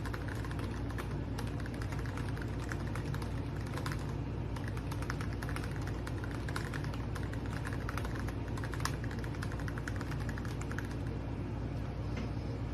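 Continuous rapid typing on a mechanical keyboard fitted with PBT XDA-profile keycaps: a dense, irregular stream of key clicks over a steady low hum.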